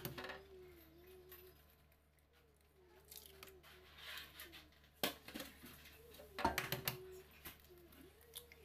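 Eggs being cracked on the rim of a plastic bowl and broken open by hand: a sharp crack about five seconds in and another around six and a half seconds, with small clicks of shell around them.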